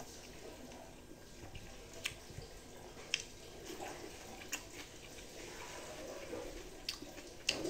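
Eating by hand: wet chewing and mouth smacks with a few short sharp clicks, and rice mixed with dal squished between the fingers on the plate.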